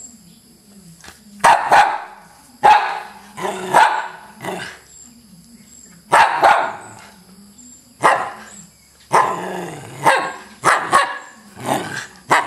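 A small wire-haired terrier barking repeatedly: about a dozen sharp barks at uneven intervals, some coming in quick pairs.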